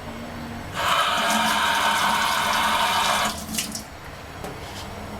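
Water running from a tap for about two and a half seconds, turned on about a second in and shut off abruptly, followed by a few light clicks.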